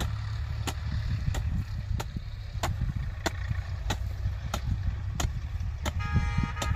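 Short-handled hand hoe chopping into dry soil between young sugarcane shoots, hoeing the field at an even pace of about three strikes every two seconds, over a steady low rumble. Near the end a horn starts sounding.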